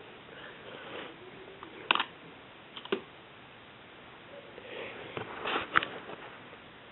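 Handling noise: a few sharp clicks and light knocks over faint rustling, with a cluster of them about five to six seconds in.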